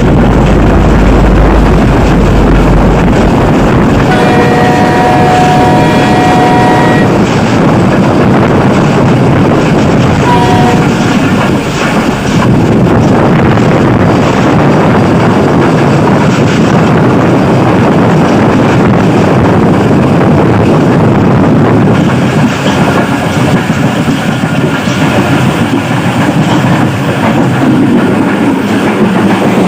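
Train running on the track, its wheels rattling over the rails. The horn sounds for about three seconds a few seconds in, then gives a short toot about ten seconds in.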